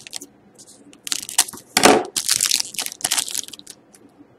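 Foil wrapper of a hockey card pack being snipped with scissors, then crinkling loudly in a run of crackles as it is pulled open and the cards are slid out, from about a second in.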